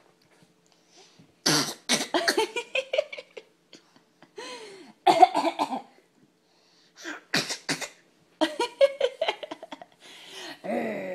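Coughing and throaty growling in about five short bouts separated by brief pauses.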